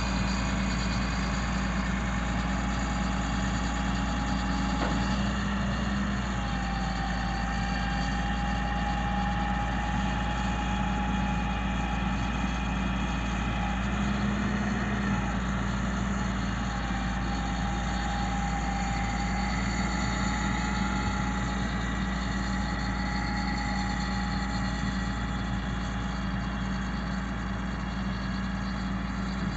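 Ford F750's Caterpillar diesel engine idling steadily while it powers the aerial boom's hydraulics. A thin, steady whine joins about six seconds in as the boom moves, breaks briefly, then fades out after about twenty seconds.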